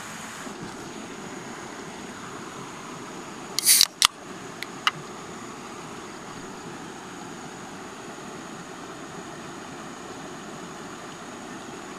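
Steady rush of a small stream over rocks. About four seconds in comes a short, sharp hiss and a click, then two faint ticks.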